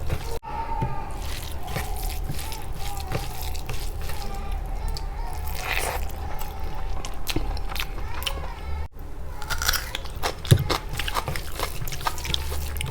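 Eating sounds: repeated bites and chewing with wet mouth clicks and some crunching, and one sharp, louder click about ten and a half seconds in.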